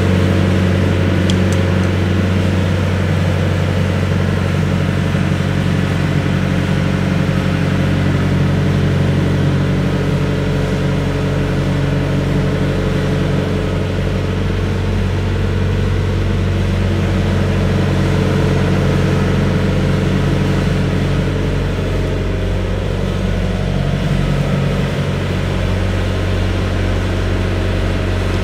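The diesel engine of a Volvo ECR88 Plus excavator idling steadily, with an even low hum that holds its pitch.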